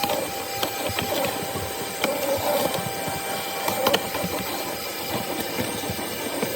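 Ridgid WD0319 cordless 3-gallon wet/dry vacuum running steadily, its motor giving a constant whine and rush of air, with a few short clicks.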